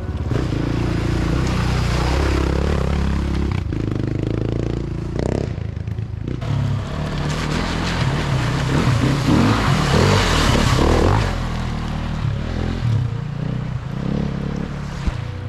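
Dirt bike engine revving as the motorbike rides through a creek crossing close by. Water sprays up loudly for a few seconds past the middle, then the engine carries on.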